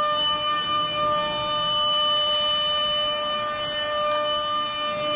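The air-cooled spindle of a CNC wood router running at speed, giving a steady high whine with several even overtones. A light hiss rises and fades in the middle.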